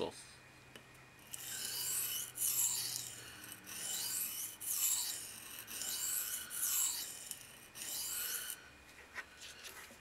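Steel blade of a Sanrenmu 710 folding knife scraping back and forth across a wet medium-grit sharpening stone: repeated rasping strokes, a bit more than one a second, starting about a second in and stopping about a second before the end. This is freehand sharpening, making passes along the bevel to raise a burr.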